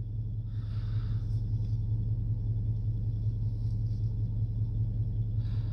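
A steady low rumbling hum with faint hiss above it, unchanging throughout, and no distinct clicks or snaps.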